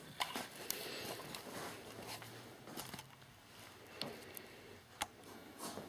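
Faint handling noise from a handheld camera being turned: a few light clicks and rustles scattered through it.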